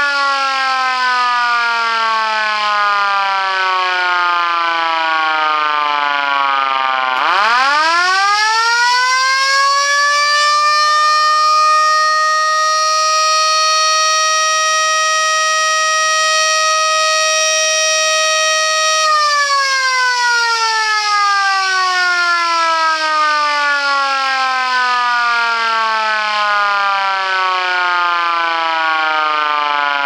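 Helin VS1 electric rotor siren being cycled on and off. It is winding down in falling pitch, is switched on again about seven seconds in and rises quickly to a steady wail, then is cut off and sinks slowly in pitch for about ten seconds, and near the end it starts to rise once more.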